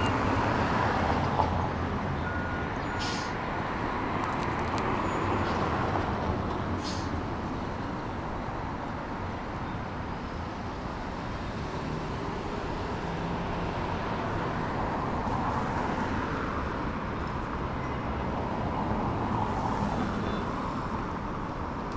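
Street ambience from road traffic: a steady wash of passing vehicles, with a few faint clicks and brief tones over it.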